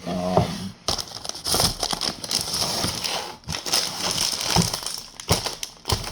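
Packaging crinkling and crackling as it is handled and crumpled, with many small irregular crackles.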